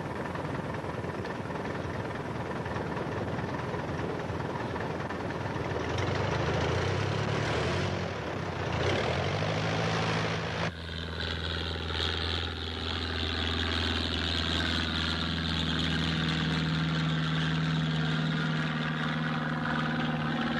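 Propeller engine of a light single-engine airplane running, rough and noisy and swelling in the first half. Just before the middle it changes abruptly to a smoother, steady drone with a clear pitch as the plane flies.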